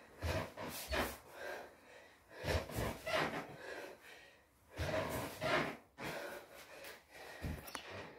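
Heavy breathing of a boy doing sit-ups, with a hard, noisy breath about every couple of seconds as he works through the reps.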